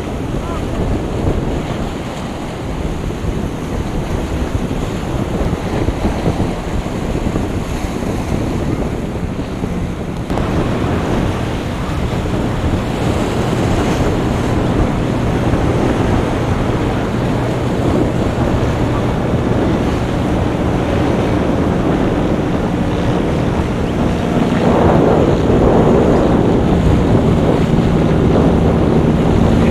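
Wind buffeting the microphone over the wash of surf, with a watercraft's engine humming in the background; the engine grows louder in the last few seconds.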